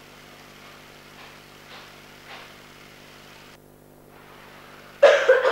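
Steady hiss and hum of an old film soundtrack. The hiss briefly drops out a little past the middle. A voice starts loudly near the end.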